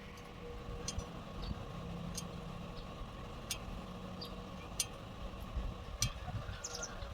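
A steady low machine hum with scattered sharp clicks and taps every second or so.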